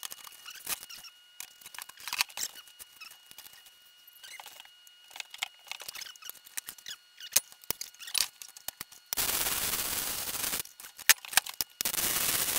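Scattered sharp clicks and taps of scrap metal parts being handled, then two short bursts of arc welding near the end, each a steady crackle of about a second and a half that starts and stops suddenly as the supports are welded in place.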